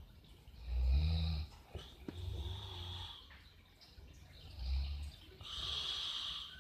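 A person snoring: three low, buzzing snores, then a hissing breath near the end.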